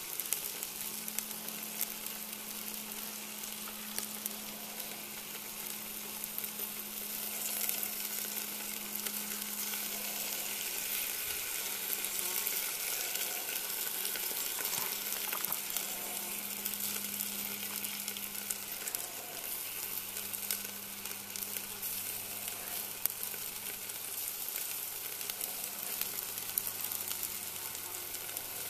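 Beef ribs sizzling steadily on a hot grill over charcoal briquettes in a cast iron camp oven as barbecue sauce is brushed onto them, with fine crackling.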